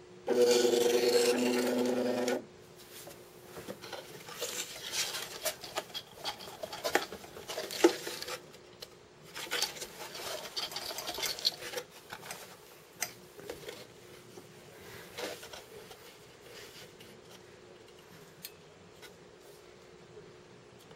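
A loud, steady pitched hum lasting about two seconds near the start. Then an Etch-A-Sketch is handled and shaken to erase its drawing: irregular rattling and scraping with knocks of its wooden mounting board, fading out after about sixteen seconds.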